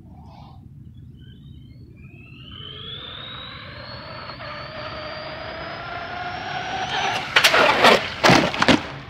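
Arrma Big Rock 4x4 BLX brushless RC monster truck on a 6S battery running toward the microphone. Its high motor whine rises steadily in pitch and grows louder. Near the end come several loud, rough bursts of noise.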